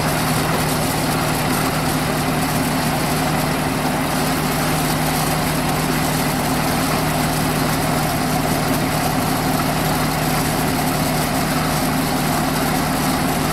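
Pickup truck engine idling steadily, just started on a bank of supercapacitors standing in for the starting battery.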